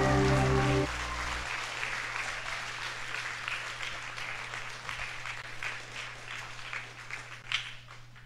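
Music ends about a second in, then an audience applauds, the clapping slowly fading away.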